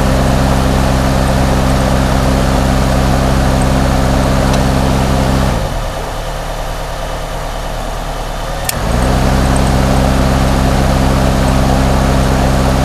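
1988 Plymouth Reliant's electric air-conditioning cooling fan humming steadily over the idling engine. It spins down and cuts out about five and a half seconds in, then kicks back on with a click about three seconds later, cycling on and off.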